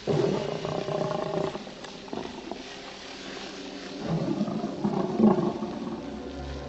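An animal growling and roaring, loudest at the start and swelling again near the end.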